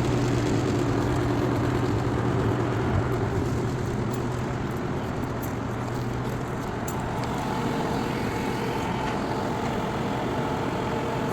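Crane truck's engine running steadily during a lift, with a low hum that eases off about four seconds in and a higher steady tone joining about seven seconds in.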